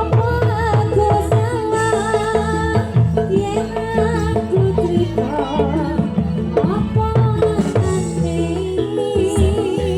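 Live Javanese jaranan music: hand drums beat a busy rhythm under a wavering, ornamented melody line.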